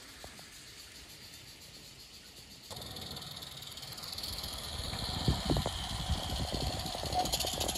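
Small live-steam garden-railway locomotive running toward the listener: a steady steam hiss and clicking, knocking wheels on the rails, growing louder over the last few seconds. Before that, about three seconds in, only faint light clicks from goods wagons rolling past.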